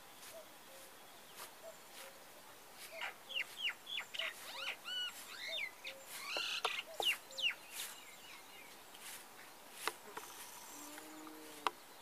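Common myna singing: a run of varied whistles, sharp rising and falling notes and chatter from about three seconds in to about eight seconds, with scattered sharp clicks. Faint, soft low notes repeat evenly in the background.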